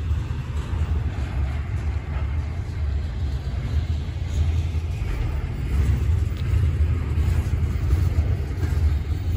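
Intermodal freight train rolling past, a steady low rumble of wheels on rail.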